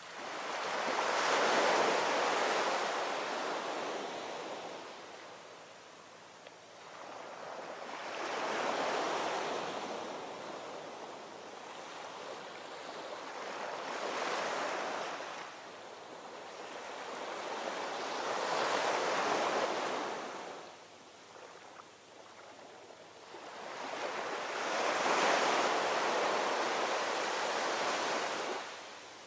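Ocean surf: waves breaking and washing in, swelling and fading away five times, about every five to six seconds.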